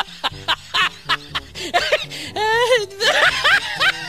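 A laughter sound effect in quick repeated bursts, with one longer wavering glide about halfway through, over background music with a steady beat.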